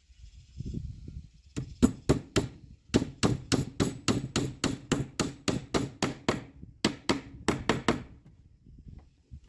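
Repeated hammer blows on wood, about four a second, in three runs with short pauses between them.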